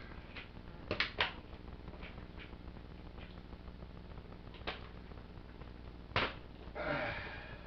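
Hard plastic toy parts of a Transformers Titans Return Trypticon clicking and snapping as they are handled and fitted: a few separate sharp clicks, two close together about a second in and the loudest about six seconds in, with a short noisy rustle near the end.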